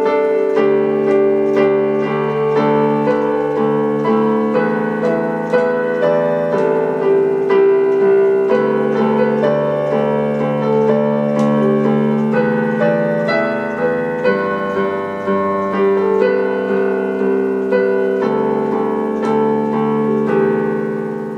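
Piano music: a gentle keyboard piece with notes struck one after another, fading out at the end.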